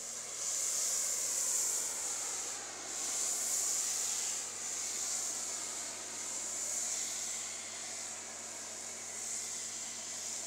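Pressure-washer foam lance spraying snow foam: a steady high hiss of spray with a faint, even low hum underneath.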